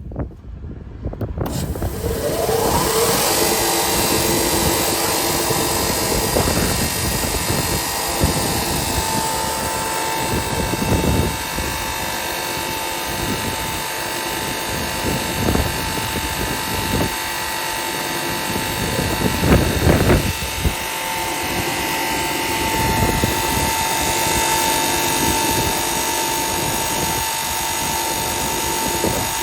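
Vangroenweghe M-300 Combi through-feed sanding machine starting up with a rising whine about two seconds in, then running steadily with its sanding belt and feed, with a few brief louder swells.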